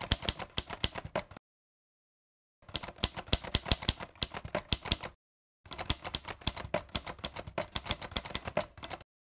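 Typewriter keys clacking in rapid, uneven runs, broken by dead silences of about a second and half a second, and stopping near the end.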